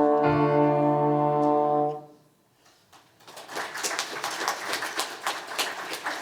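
A held final chord of live music rings and cuts off about two seconds in. After a second of quiet, audience applause starts and continues.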